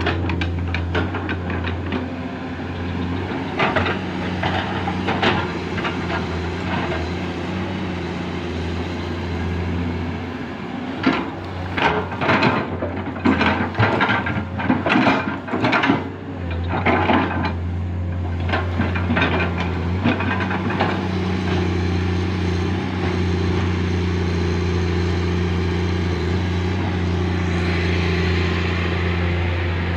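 Hydraulic excavator's diesel engine running steadily under load while digging, with a burst of knocks and clanks in the middle.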